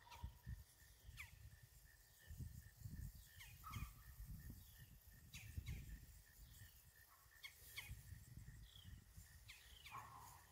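Near silence: faint outdoor ambience with scattered short, downward chirps of birds, a faint evenly pulsing high tone, and a low rumble.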